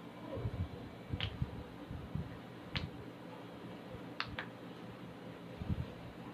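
A few short, sharp clicks and soft low thuds from a client's body being handled and stretched during a hands-on stretching session.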